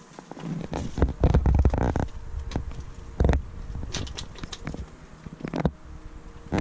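Footsteps on loose railway track ballast: an uneven series of gravel crunches and thuds.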